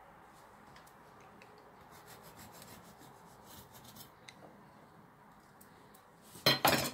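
Knife scraping the crust off a baked sponge cake on a wooden board: soft, uneven rubbing and scratching with small ticks. Near the end, a short, much louder double noise.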